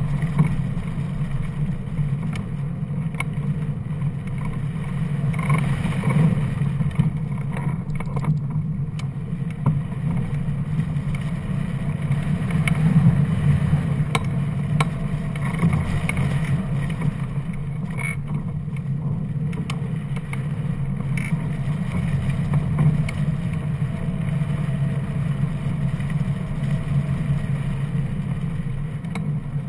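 Airflow rushing over a hang glider's wing-mounted camera microphone in flight: a steady low wind rush.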